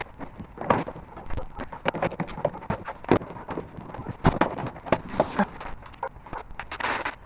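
Irregular knocks, clicks and rustles of a kids' ride-on toy car's parts being handled and fitted together during assembly.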